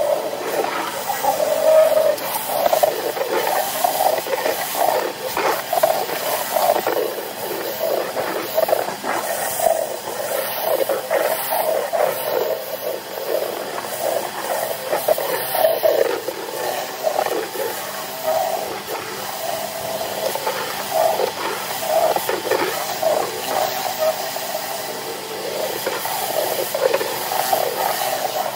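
Kärcher K3 electric pressure washer running, its high-pressure water spraying through the rotary patio cleaner onto paving slabs as dirt, algae and moss are blasted off. The spray noise is steady and wavers slightly in level.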